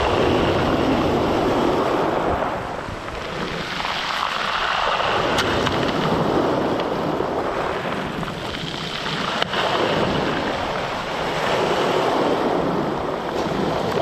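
Black Sea waves breaking and washing over a stony beach, swelling and drawing back in surges every few seconds. A single sharp click comes about nine seconds in.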